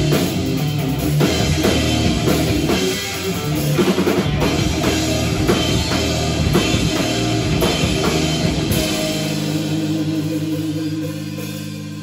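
Live instrumental rock from a trio of electric guitar, electric bass and a Tama drum kit playing loudly. About three-quarters of the way through, the drums stop and a final held chord rings on with a wavering pulse, slowly fading as the song ends.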